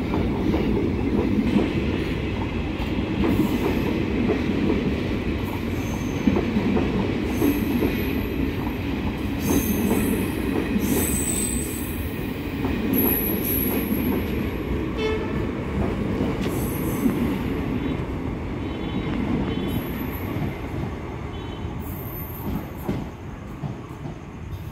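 An Indian Railways passenger train's coaches rolling past: a steady rumble of wheels on the track, with short high-pitched squeals now and then. It gets quieter near the end as the train draws away.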